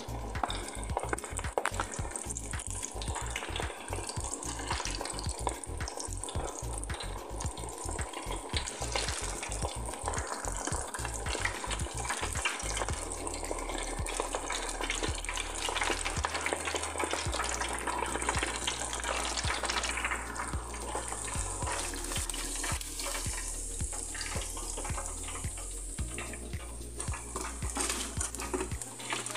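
Chicken feet deep-frying in hot oil in an electric deep fryer's wire basket, the oil bubbling and crackling steadily as the feet turn golden brown.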